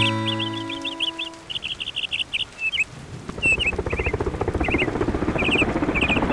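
Sustained music notes die away in the first second or so. Small birds chirp in quick repeated clusters throughout, and from about three seconds in a rising hiss of noise sets in beneath them.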